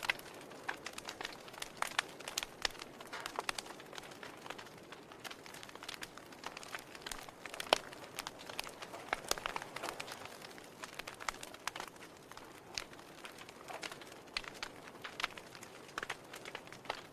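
Wood fire crackling, with irregular sharp pops and snaps over a soft steady hiss; one pop about eight seconds in stands out as the loudest.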